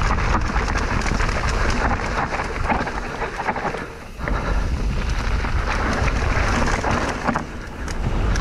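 Wind buffeting the microphone over crackling tyre noise from a mountain bike riding a rough trail. It eases briefly about four seconds in and again near the end.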